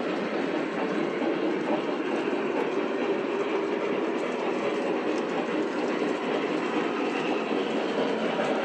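Several model trains running at once on metal track: a steady clatter of wheels and motors with no break.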